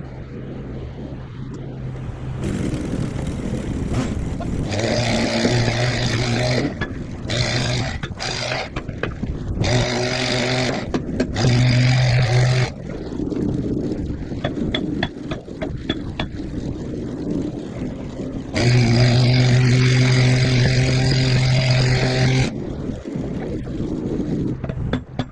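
A motor-driven machine running, its steady pitched hum coming on strongly in three stretches of a few seconds over a continuous rough mechanical noise.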